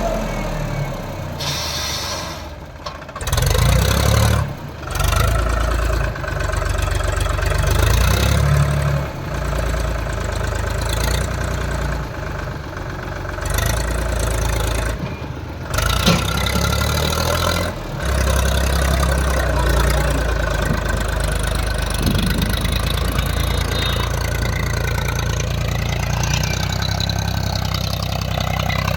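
Tractor diesel engines running under load, their pitch rising and falling, with abrupt changes in sound every few seconds.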